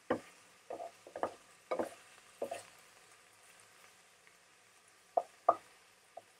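Wooden spatula and wooden fork scraping and knocking on a frying pan as pieces of diced chicken breast are turned: about five short scrapes in the first two and a half seconds, a pause, then two or three more near the end. A faint sizzle of the chicken frying lies underneath.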